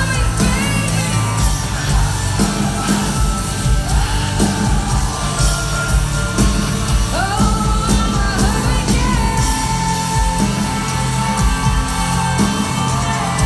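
Live pop concert music at full volume from an arena crowd's position: heavy bass, a sung vocal line with a long held note near the end, and the crowd yelling along.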